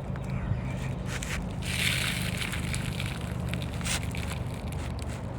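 Asphalt roofing shingle scraping and crackling as it is handled and slid into place, with a scratchy stretch about two seconds in and a few sharp clicks, over a steady low hum.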